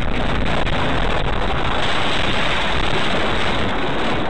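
Loud, steady rushing noise of a car running off the road across the dirt shoulder and into a field, picked up by a dashcam microphone.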